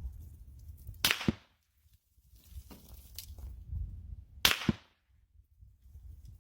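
Two incoming rifle shots heard from 200 yards downrange, about three and a half seconds apart. Each is a sharp crack from the supersonic bullet, followed about a quarter second later by the duller report of the distant muzzle blast, over a low wind rumble.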